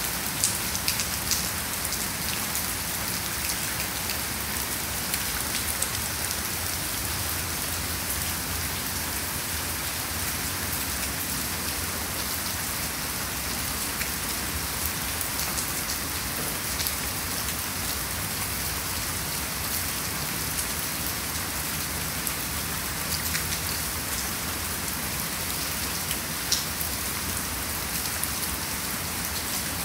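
Heavy rain falling steadily, an even hiss with scattered sharper drops spattering here and there.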